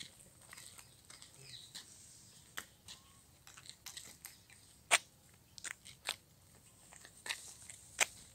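Scattered crunches and crackles at irregular intervals, the loudest about five seconds in and again near the end.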